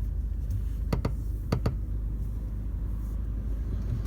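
Steady road rumble inside the cabin of a 2018 Mercedes-Benz A-Class, with sharp plastic creaks from the upright rear seats: two quick pairs of clicks, about a second in and again half a second later. The owner reports the creaking only happens with the rear seats folded up, over bumps.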